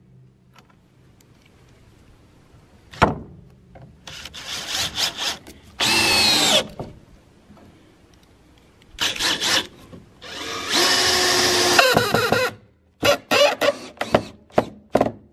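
Cordless drill driving screws into wooden boards in several separate bursts, the motor whining up and winding down with each. There is a longer steady run a little past two-thirds through, then a string of quick short trigger pulses near the end as screws are seated.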